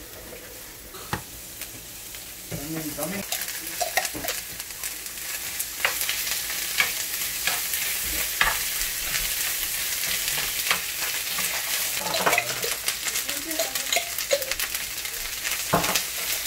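Chicken, asparagus and red onion sizzling in a hot skillet, the sizzle growing louder about two seconds in, while a fork stirs the food, clicking and scraping against the pan.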